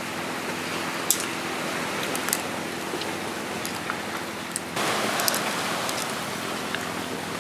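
Clams sizzling in a pan over a wood fire: a steady hiss like rain, with a few sharp clicks and crackles. The hiss gets louder about two-thirds of the way through.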